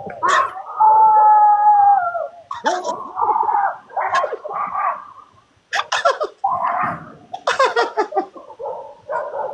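A person imitating a dog: a long howl that falls in pitch at its end, then a string of shorter yelping and barking calls, as though scolding a dog in its own language.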